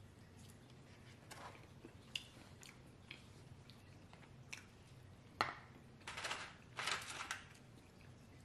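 Close-up eating sounds: soft chewing with scattered wet mouth clicks, a sharp click about five and a half seconds in, then a few short crunchy rustles between six and seven and a half seconds as a tortilla chip is picked up and dipped into the bowl.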